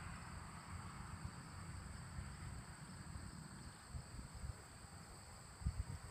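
Faint outdoor field ambience: wind buffeting the microphone in uneven gusts, a little stronger near the end, over a steady high-pitched insect drone.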